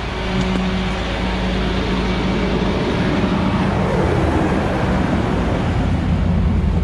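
Tow truck engine idling steadily while interstate traffic passes close by, one vehicle swelling past around the middle.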